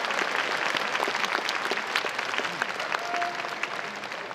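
Baseball crowd applauding, a dense patter of many hands clapping.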